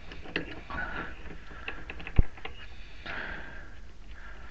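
Quiet handling noises at a metal lathe's tool post while the cutting tool is set to centre height, with one short sharp knock about two seconds in.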